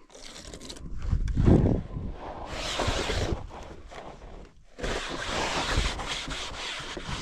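Dish soap water being poured over an inflated air mattress and spread by hand, with rubbing and scuffing on the mattress surface.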